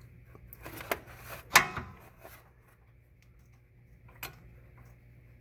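Metal clinks and scraping as the rear brake caliper bolt is worked out by hand and wrench. Three sharp clinks about one, one and a half, and four seconds in, the middle one loudest, over a faint steady hum.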